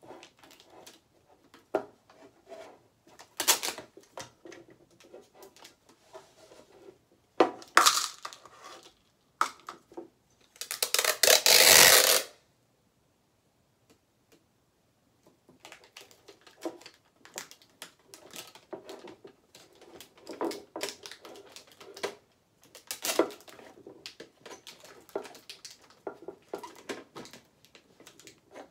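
Packing tape pulled off a handheld tape dispenser in strips, torn off and pressed across the rim of a metal bucket to build a drum head, with many small handling clicks and scrapes. The longest and loudest pull comes about eleven seconds in.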